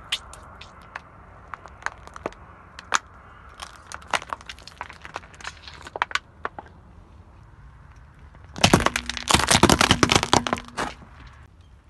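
Car tyre rolling over objects on asphalt and crushing them: scattered sharp cracks and pops as a plastic bottle gives way under the tread. About nine seconds in comes a dense run of loud crackling crunches, lasting about two seconds, as brittle items break under the tyre.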